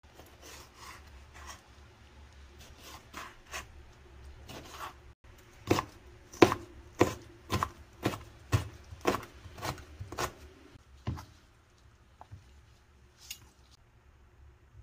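Kitchen knife chopping cabbage kimchi on a cutting board: light strokes at first, then about ten sharp chops at roughly two a second, stopping a few seconds before the end, with a faint click near the end.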